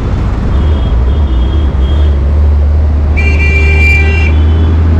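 Street traffic heard from a moving cycle rickshaw, under a strong steady low rumble. A vehicle horn honks once for about a second, about three seconds in.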